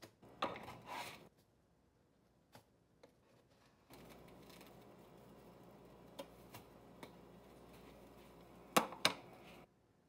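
A spatula scraping across an electric griddle as slices of French toast are flipped, two quick scrapes in the first second. Then a faint steady sizzle of the toast cooking, with a few light taps and two sharper knocks near the end.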